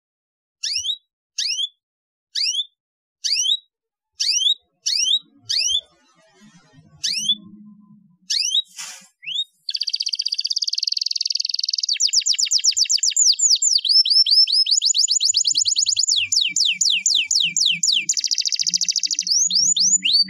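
Domestic canary calling: a string of single quick high chirps, about one or two a second. From about halfway in it breaks into fast continuous song of rapid trills and rolls, the practice song used to train young canaries.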